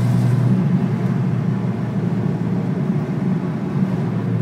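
Steady drone of a car's engine and road noise heard from inside the cabin while driving.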